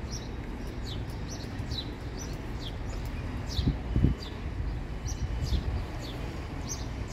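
A bird calling over and over, a short falling chirp about once a second, over a steady low rumble. A couple of dull thumps come about four seconds in.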